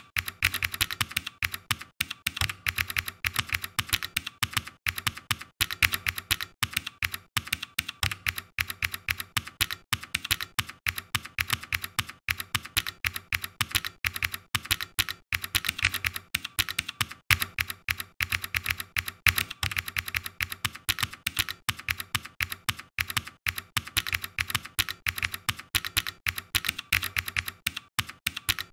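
Computer keyboard being typed on, a fast run of key clicks broken by brief pauses between bursts of typing.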